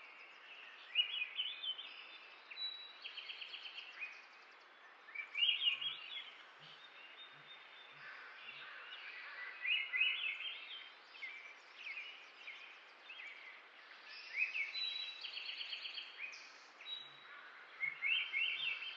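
Small birds chirping and calling every few seconds, with short runs of rapid repeated notes, over a steady background hiss.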